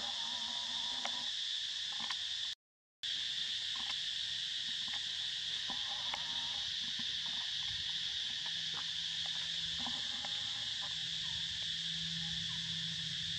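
Steady, high-pitched drone of forest insects, with the sound cutting out completely for about half a second about two and a half seconds in.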